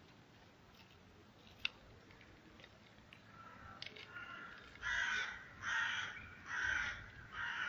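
A crow cawing four times in a row, about one caw a second, starting about five seconds in; before that only faint background and a single sharp click.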